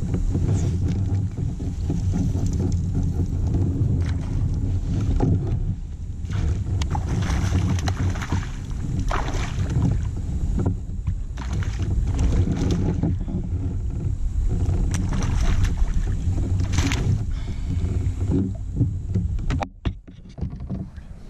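Wind buffeting the microphone of a camera mounted on a kayak: a loud, steady low rumble, with a few brief louder rustles and knocks from handling gear aboard.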